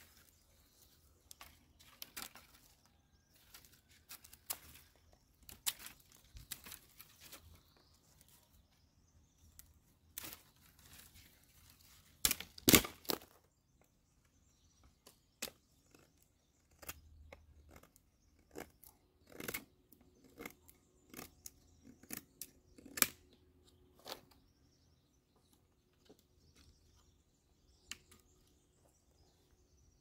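Sticks and logs being handled and set in place to build a fire reflector: irregular wooden knocks, cracks and crunching, the loudest cluster about twelve seconds in.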